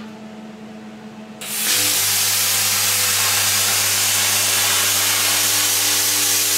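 Plasma cutter with a new nozzle cutting 1 mm sheet metal: about a second and a half in, the arc starts with a loud, steady hiss of air and a low buzz underneath.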